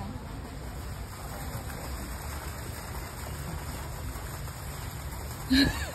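Steady rushing noise, heaviest at the low end, with no clear events in it. A brief voice sounds near the end.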